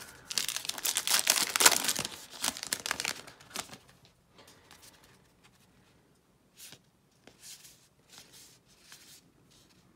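Wrapper of a Topps Archives baseball card pack being torn open and crinkled for about three seconds, followed by a few faint soft clicks of cards being handled.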